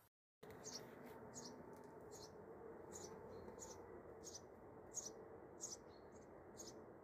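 Fig jam syrup boiling in a stainless steel pot: a faint steady bubbling with small sharp pops and crackles of bursting bubbles about every half second.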